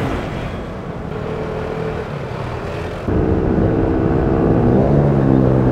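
Vespa Primavera 150 scooter's single-cylinder four-stroke engine running at a steady cruise while riding, with wind and road noise. About three seconds in it abruptly gets louder, with a stronger, steadier engine hum.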